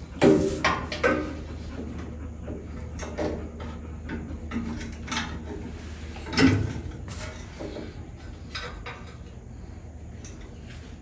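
Knocks and clatter of a turn-signal lamp housing being worked into place behind a chrome front bumper by hand: a quick cluster of louder knocks in the first second and another about six and a half seconds in, with lighter clicks between, over a steady low hum.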